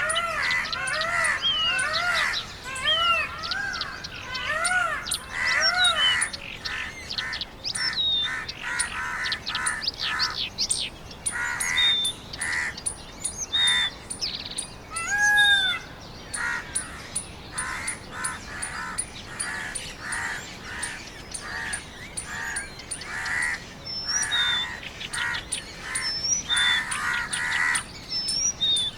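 Mixed chorus of bird calls. A fast series of arched, pitched calls in the first six seconds gives way to many short, harsh calls repeated throughout, with scattered high whistled notes and one lower arched call about halfway through.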